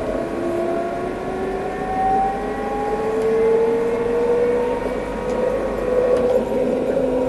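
Alstom Citadis 302 tram's traction motors whining as it accelerates, several tones rising steadily in pitch and levelling off near the end, over the rumble of the wheels on the rails, heard from on board.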